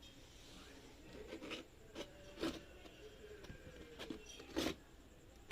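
Packaging being handled by hand during an unboxing: a series of short scrapes and rustles, about half a dozen, with the loudest right at the end.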